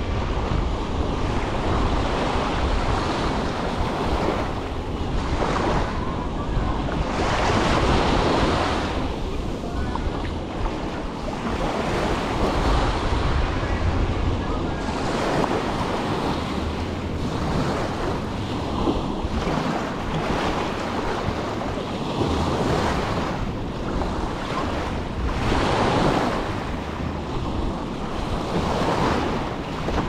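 Small waves breaking and washing up a sandy shore, the wash swelling and ebbing every few seconds, with wind buffeting the microphone in a low rumble.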